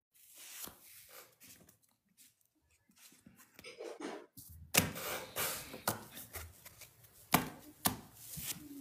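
Handling noise: scattered sharp knocks and clicks with some rubbing, faint at first and busier from about halfway in.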